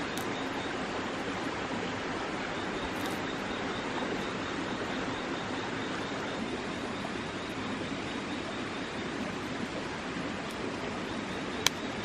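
Steady, even rushing background noise, with two sharp clicks near the end.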